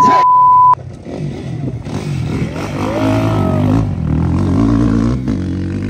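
A steady electronic beep that cuts off sharply under a second in, then the engines of enduro dirt bikes revving, their pitch rising and falling as the bikes race the course.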